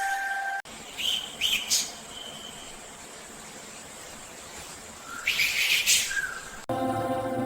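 Bird calls over a faint hiss of forest ambience: a few short rising chirps about a second in, then a loud, harsh squawk at about five seconds. Soft music cuts in abruptly near the end.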